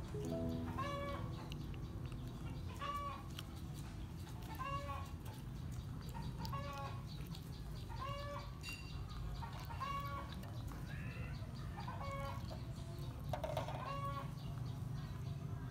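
A clucking call repeated evenly about once a second, each one the same short arched note, over a steady low rumble.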